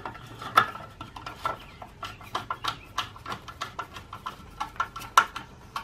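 Hand screwdriver clicking rapidly and unevenly, several clicks a second, as it drives a 4 mm screw back into the motorcycle's side cover.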